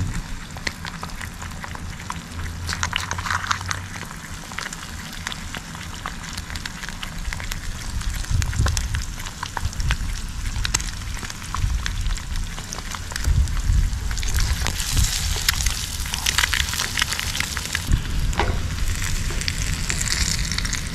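Eggs sizzling and crackling as they fry in a frying pan over a Trangia alcohol burner. The sizzle grows stronger in the last third.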